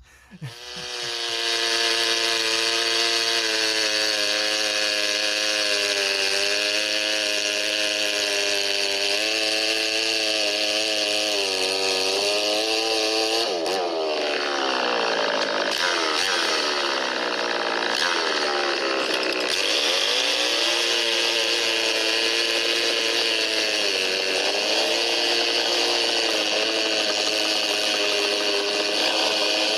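Two-stroke chainsaw running at high revs. About 14 s in, the engine speed drops and climbs back several times over some six seconds, then it runs steady again.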